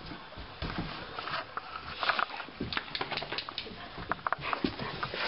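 A white German Shepherd puppy moving about close by, with irregular soft clicks, taps and rustles.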